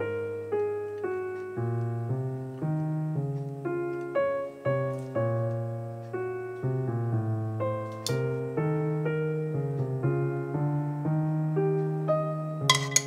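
Background piano music: a steady run of plucked-sounding notes over a held bass, with a couple of short clicks, one about eight seconds in and a louder pair near the end.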